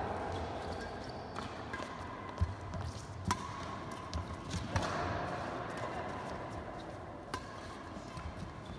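Badminton rally: rackets striking a shuttlecock, with footfalls on the court. About five sharp hits land at irregular intervals of one to two seconds.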